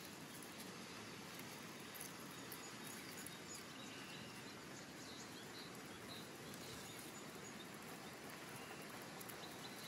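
Eurasian red squirrel gnawing through a hazelnut shell close by, faint scattered ticks and scraping over a steady outdoor hiss, with a few faint high chirps from small birds.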